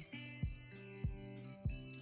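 Background music with a steady beat, a low thump about every 0.6 seconds under held, pitched notes.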